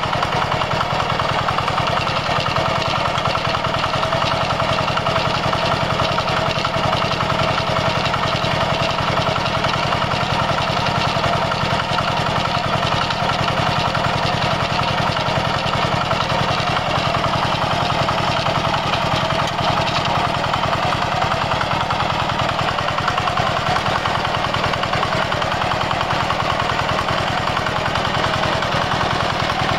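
Two-wheel walking tractor's single-cylinder diesel engine running steadily under load as it pulls a plough through the soil: a fast, even thumping with no change in speed.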